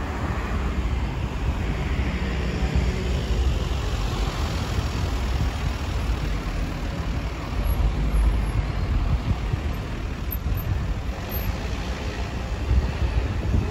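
Road traffic at a town-centre junction: cars and a van driving past close by, a continuous rumble of engines and tyres.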